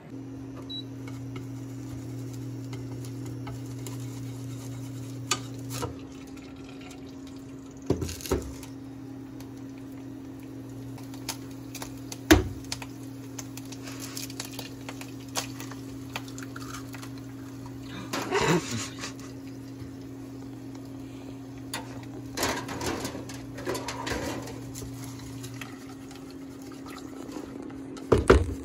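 Egg-and-garlic frying in a small non-stick frying pan over a steady electric hum. There is a sharp crack about twelve seconds in as the egg is broken on the pan, then a few seconds later short bursts of sizzling in the hot sesame oil. Near the end come the scrapes and taps of wooden chopsticks stirring the egg against the pan.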